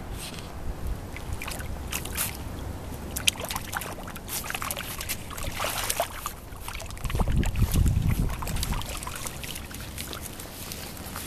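Shallow creek water splashing and sloshing as a mink struggles with a muskrat it has caught, with many sharp little splashes and clicks. A louder low rumble on the microphone comes about seven seconds in and lasts a couple of seconds.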